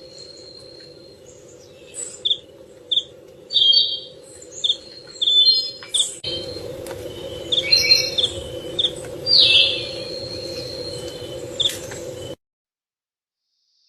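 Birds chirping: many short, sharp calls, some in quick runs, over a steady low background hum. The background shifts abruptly about six seconds in, and all sound cuts off near the end.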